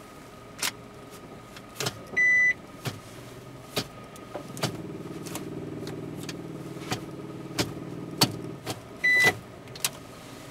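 The gear selector of a 2003 Mitsubishi Colt's automatic transmission is being moved through its positions, giving a series of clicks as it passes each detent. A short electronic beep sounds twice, about two seconds in and near the end. A low hum runs for about four seconds in the middle.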